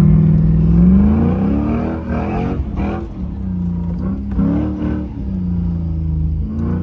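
Car engine revving, its pitch rising and falling several times over a steady low drone.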